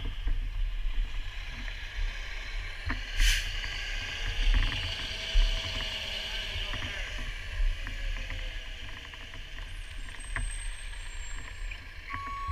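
Fire apparatus running with a steady low rumble, under footsteps and small knocks of a firefighter's gear moving over snowy ground, with a short hiss about three seconds in. A truck's reversing beeper starts just before the end.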